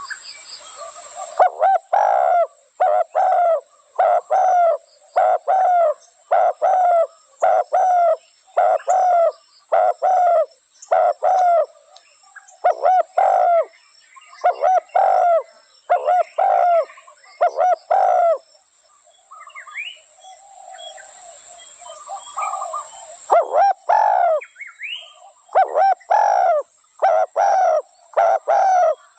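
Spotted dove cooing: a long series of short, hollow coo notes repeated in quick succession. The cooing pauses for a few seconds about two-thirds through, when faint chirps of another bird are heard, then starts again.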